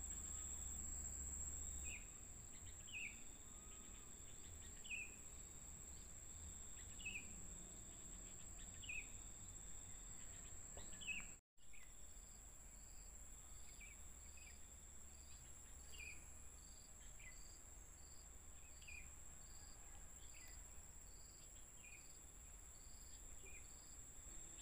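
Faint outdoor insect chorus: a steady high-pitched trill of crickets or cicadas, with a bird giving a short downward-sliding call about every two seconds. The sound drops out for a moment about halfway through.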